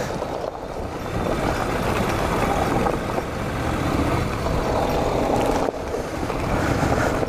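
Honda NC700X's parallel-twin engine running through a loud aftermarket GPR exhaust while the motorcycle rides along a gravel road, with a short dip in level near the end.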